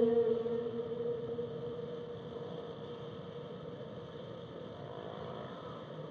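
Whale song recorded underwater: the end of a long, steady-pitched call fades out over the first second or two, leaving a steady underwater rumble and hiss with faint further calls about five seconds in.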